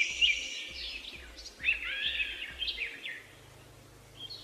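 Wild birds chirping in short calls that slide up and down in pitch, with a quick run of calls about two seconds in. A high insect trill fades out in the first half second.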